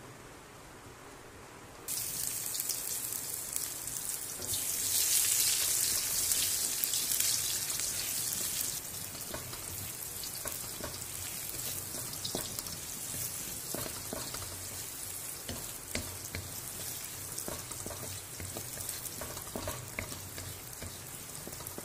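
Chopped shallots and garlic sizzling in hot oil in a wok. The sizzle starts suddenly about two seconds in, is loudest for a few seconds, then settles to a steady sizzle with small crackles.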